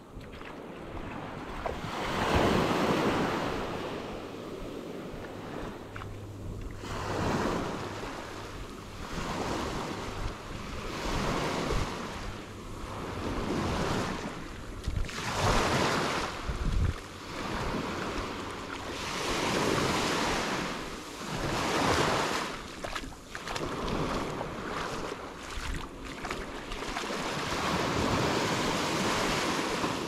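Ocean waves breaking and washing up a sand beach, the surf swelling and fading every few seconds.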